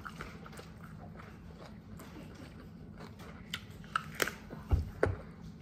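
Close-miked chewing of a mouthful of food with soft wet mouth sounds. A few sharper smacks and clicks come in the last two seconds.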